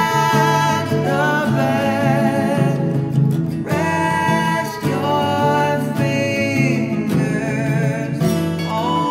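Recorded folk-pop song with guitar and a held, sliding melody line over a steady bass.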